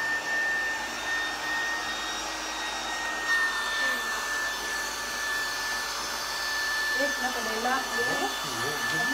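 Electric air pump running steadily, blowing air into an inflatable pool, with a constant high-pitched whine over the rush of air.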